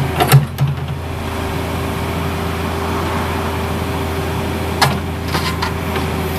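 Cat 305 mini excavator's diesel engine running steadily, with a cluster of sharp knocks about half a second in and another about five seconds in.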